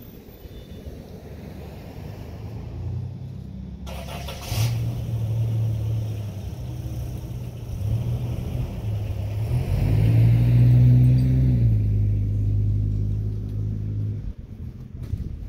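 A mail delivery truck's engine running on the street. It grows louder, rises in pitch around ten seconds in as it accelerates, and drops away shortly before the end. A brief rustling burst comes about four seconds in.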